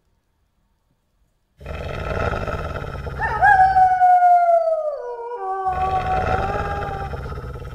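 Wolf howling: a long howl that swoops up and then slides slowly down, with a second, lower howl taking over and holding steady, over a steady background rush that starts about a second and a half in.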